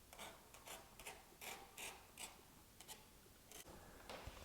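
Faint, short scratching strokes, two or three a second, as a tool scores the surface of EPO foam to roughen it before gluing.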